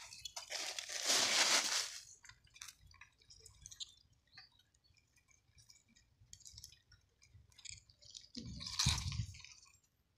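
Gritty scraping and crunching of a rock and soil as the rock is lifted off the ground, then scattered small ticks of grit. About eight and a half seconds in comes a second scrape with a dull knock.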